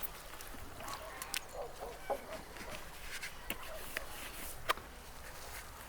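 Domestic fowl clucking in short clusters of calls, with a few sharp clicks in between.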